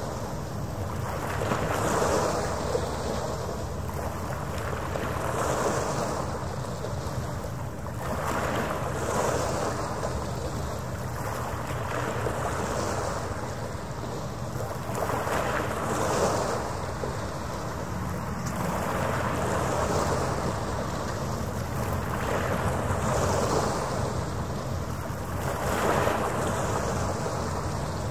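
Small harbour waves washing against the shore, swelling and fading about every three and a half seconds, over a steady low rumble and a faint steady hum.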